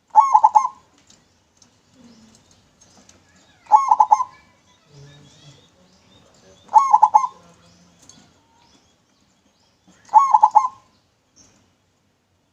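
Zebra dove (perkutut) cooing its clear song: four short rolling phrases, each under a second, about three seconds apart.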